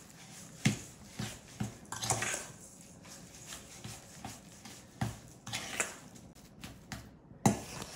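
A large metal fork mixing ground chicken, egg and breadcrumbs in a stainless steel bowl, clinking and scraping against the bowl in irregular strokes, the loudest one near the end.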